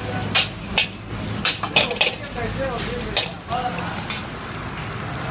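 Fried rice sizzling in a large wok over a gas burner as it is tossed and stirred, with several sharp metal clanks of a steel ladle against the wok in the first few seconds, then just the steady sizzle.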